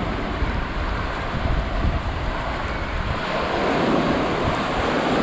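Ocean surf breaking and washing up the beach, with wind rumbling on the microphone that is heaviest in the first three seconds; a wave swells louder about three and a half seconds in.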